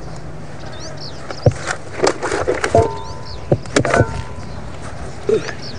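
A run of irregular knocks and clatters, bunched in the middle, over birds chirping and a low steady hum.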